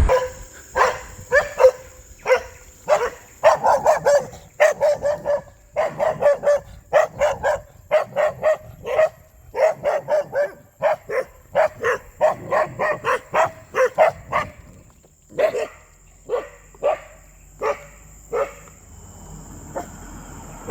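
A dog barking over and over, about two or three barks a second, then a few spaced barks before it stops.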